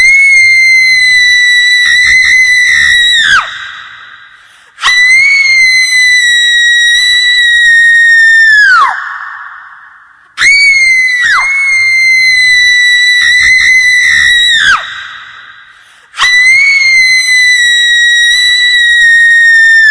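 A woman wailing in long, high-pitched screams: four held cries of several seconds each. Each cry breaks briefly near its start and drops in pitch at the end, trailing off in an echo.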